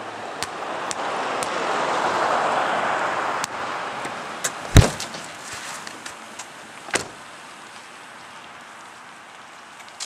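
A swelling hiss that cuts off suddenly, then, about five seconds in, a single loud thud as a minivan's front door is flung open into a person. A lighter knock follows about two seconds later.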